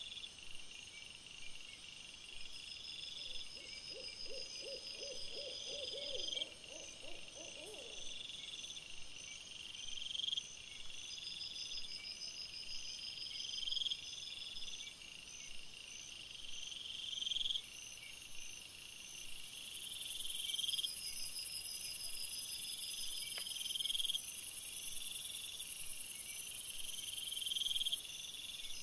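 Night insect chorus: crickets chirping in repeated phrases, with a steady high insect hiss coming in over the second half. Early on, a short run of rapid, low pulsed notes from another animal sounds for a few seconds.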